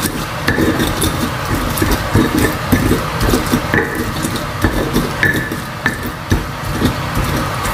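Stone pestle grinding and crushing chopped shallots, garlic and chili into a moist spice paste in a stone mortar: an irregular run of wet scraping and knocking strokes.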